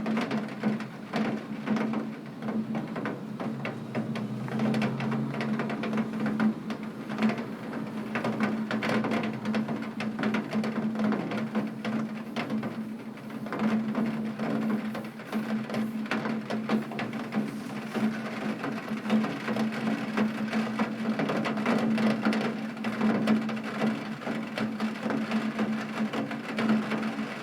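Rain drumming on a tin roof: a dense, irregular patter of drops hitting metal over a steady hiss, with a steady low hum underneath.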